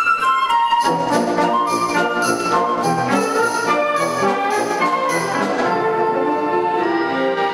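Concert band playing live, brass and woodwinds together with French horns and trombone, over a steady beat of percussion strokes that falls away near the end.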